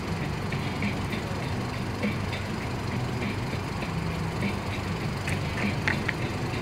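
A steady low engine hum, like a vehicle idling or traffic running, with scattered light clicks and smacks of someone eating with her hands.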